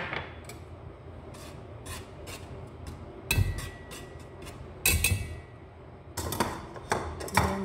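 A wire whisk and utensils knocking and scraping in a stainless steel mixing bowl while dry pancake ingredients (flour and powdered milk) are stirred: scattered clicks with a few louder knocks. One knock about three seconds in leaves a faint ringing tone.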